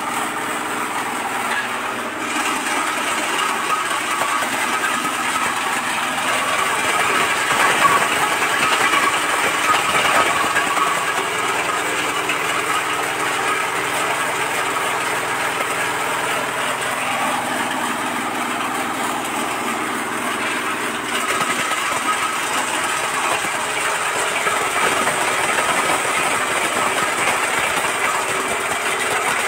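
Areca nut cracking machine running steadily: a motor's hum under a dense rattle of nuts passing through the cracker.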